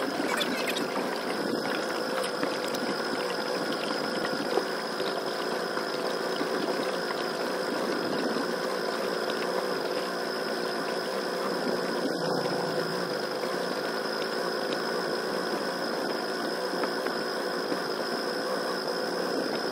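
Small boat motor running steadily with a constant buzzing whine and a high steady tone; it sounds like a fly.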